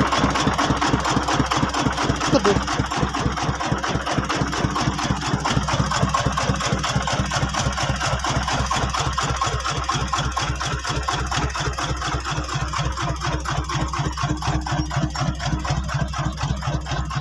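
Engine of a homemade Cambodian farm truck running steadily at a low, even speed, with a regular pulse of firing strokes and no revving.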